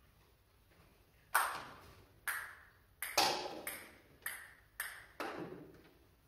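Table tennis ball bouncing on a hardwood floor: about eight sharp knocks, irregularly spaced over some four seconds, each ringing out in the echoing hall.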